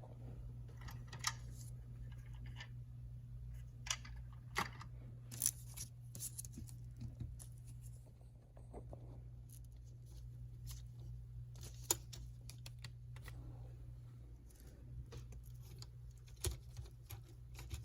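Scattered light clicks and taps of small parts being handled, over a steady low hum.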